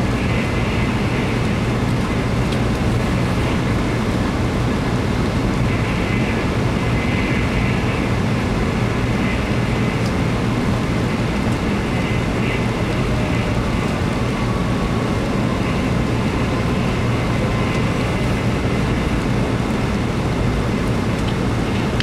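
Steady cabin noise of a Hikari shinkansen bullet train running at about 243 km/h, heard from inside the passenger car: a deep, even rumble with a rushing hiss above it that swells slightly now and then.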